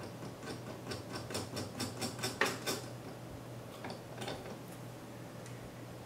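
Light clicking and ticking of a knurled metal thumbscrew being fitted by hand and turned onto a mounting post of a Koolance CPU-370 water block. A quick run of clicks over the first three seconds, then a few scattered ones about four seconds in.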